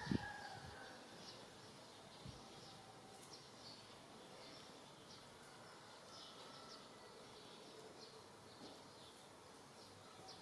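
Quiet background with faint, scattered short high chirps. A soft thump right at the start and a smaller one about two seconds in.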